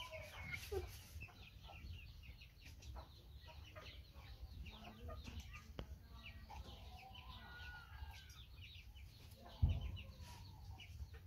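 Chickens clucking faintly, mixed with small clicks and scrapes of a knife cutting into the top of a green coconut. A dull thump comes near the end.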